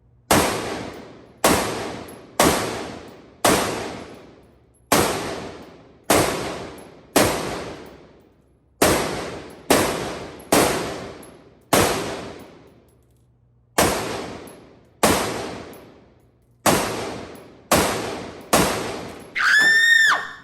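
Springfield Armory Saint Victor AR-15 rifle fired in slow semi-automatic succession, about sixteen shots roughly a second apart, each ringing out with a long echo. Near the end comes a short ringing tone that rises and falls in pitch.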